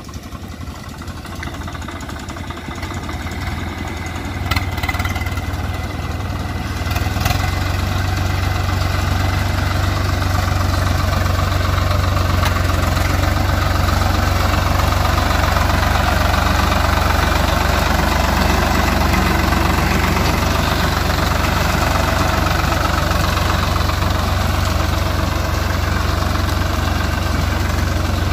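Swaraj 855 tractor's three-cylinder diesel engine running steadily as the tractor works through mud. It grows louder over the first eight seconds or so as it comes closer, then holds level.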